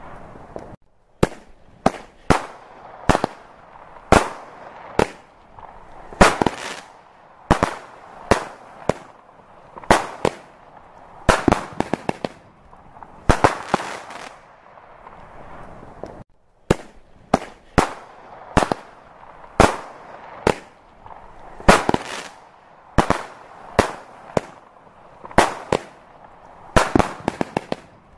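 Aerial fireworks display: shells bursting in a steady run of sharp bangs, roughly one or two a second, some followed by quick crackling clusters, with a brief lull about halfway through.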